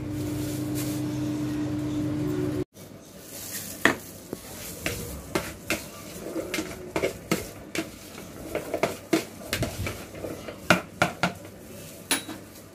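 Samsung microwave oven running with a steady hum, which cuts off abruptly about two and a half seconds in. Then comes a string of sharp clinks and knocks of a bowl and utensils being handled.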